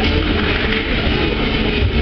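Loud steady hubbub of a crowd in a sports hall, with a heavy low rumble underneath.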